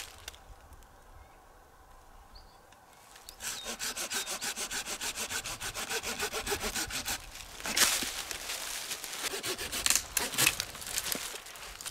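Hand saw cutting wood in quick, even back-and-forth strokes, starting about three seconds in and running for about four seconds. Then a sharp crack, followed by irregular knocking and scraping of wood.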